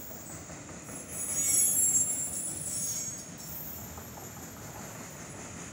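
Freight train of autorack cars rolling past with a steady rumble. About a second in, the steel wheels squeal high-pitched for around two seconds, the loudest sound here, before fading back to the rolling noise.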